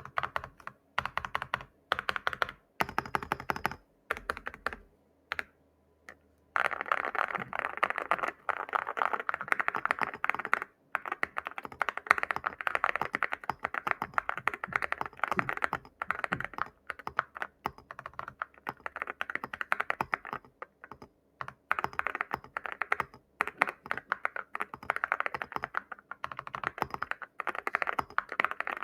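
Mechanical keyboard typing: a Meletrix Zoom75 with WS Morandi linear switches, picked up by a Fifine Ampligame A8 USB microphone. A few short groups of keystrokes with gaps come first, then fast, continuous typing from about six seconds in, broken by a few brief pauses.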